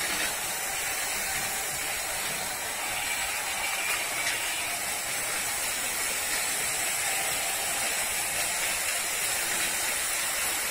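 Several battery-powered toy trains running together on plastic track: a steady mechanical whirring and rattling of small motors and gears, with a steady high hiss.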